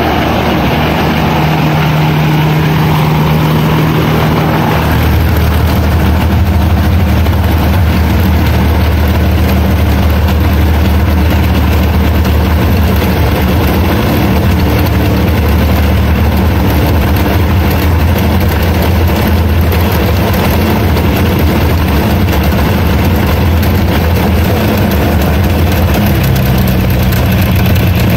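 Thunder Gull JT2 ultralight's liquid-cooled engine running steadily on a ground run. About five seconds in its pitch drops to a lower, steady note, and near the end it rises slightly.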